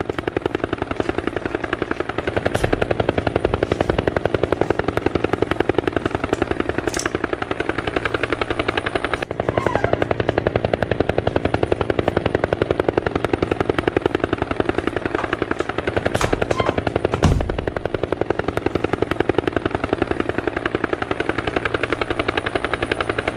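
Helicopter rotor chop: a fast, steady, even beating that runs on with a brief dip about nine seconds in. A short low thump comes about seventeen seconds in.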